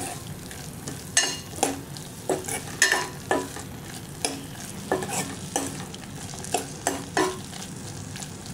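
Metal spoon stirring and scraping against a stainless-steel pot, mixing rasam powder into sizzling shallots and tomatoes. There are irregular clinks and scrapes about once or twice a second over a steady frying sizzle.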